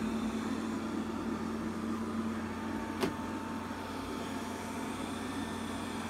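Robit V7S Pro robot vacuum running on carpet: a steady motor hum with a faint whine, and a single sharp click about halfway through.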